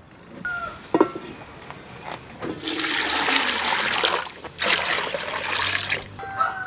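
A sharp knock about a second in, then water poured from a plastic scoop into a large aluminium pot that already holds water, splashing in two long pours with a short break between them.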